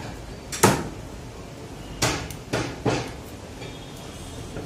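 Butcher's knife chopping through chicken leg pieces onto a wooden tree-trunk chopping block: a sharp chop about a second in, then three more in quick succession between two and three seconds in, over steady background noise.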